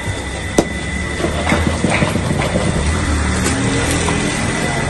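Clinks of steel utensils, with one sharp click about half a second in, as lassi is ladled and poured, over a steady low rumble of busy surroundings.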